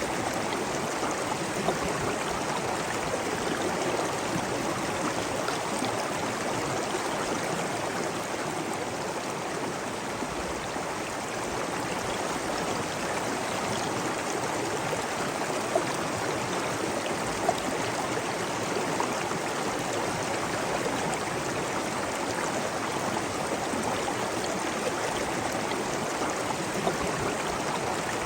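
Running water rushing steadily, like a stream or cascade, with a few small splashes standing out now and then.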